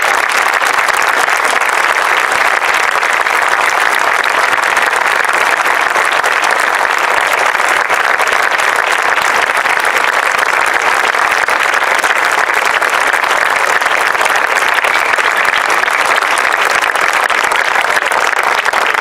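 A crowd of people applauding, steady and sustained clapping.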